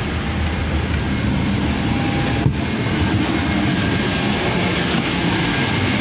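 Steady machinery noise with a low hum, as a Boeing 777's forward cargo door is powered open, with a single brief click about two and a half seconds in.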